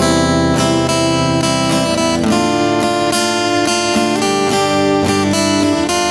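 Acoustic guitar strumming chords as the instrumental intro of a country song, before the singing starts.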